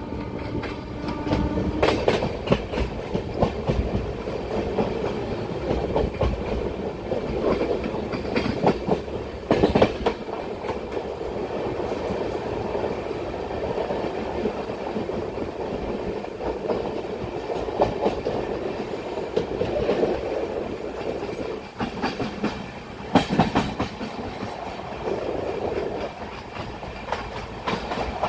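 Express train's coach wheels running on the track, heard from an open coach door: a steady rumble with irregular clattering knocks as the wheels pass over rail joints and points, the loudest knocks coming a few times.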